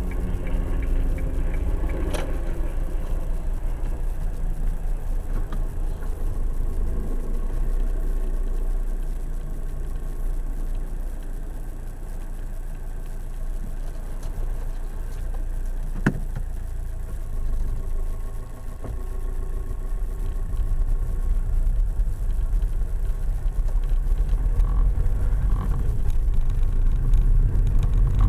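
Car engine and cabin rumble heard from inside the car during a slow turn in the road, easing off about halfway through, then building as the car pulls away near the end. A sharp click sounds about two seconds in and another about sixteen seconds in.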